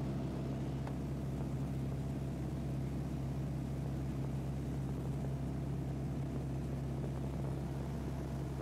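Light aircraft's engine and propeller droning steadily in flight, heard from inside the cabin.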